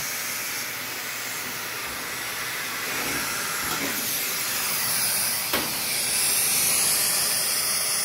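Vacuum cleaner running with a long flexible dryer-vent hose attachment, air rushing through the hose with a steady hiss as it sucks lint out of a dryer's lint-trap slot. The hiss gets louder about five to six seconds in, with a single short click just before.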